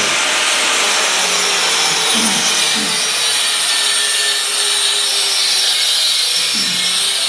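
Handheld electric circular saw running steadily as it cuts through a plywood panel, a loud, continuous, hissing whine.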